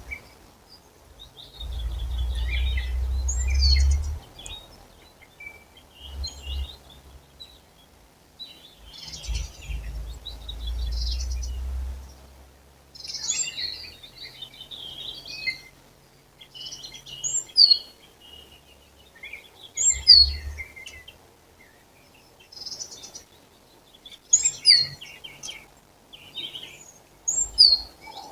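Several songbirds singing: short chirps, trills and sharp high notes in bouts every few seconds, with more than one bird overlapping. Stretches of low rumble come and go underneath, loudest about two and ten seconds in.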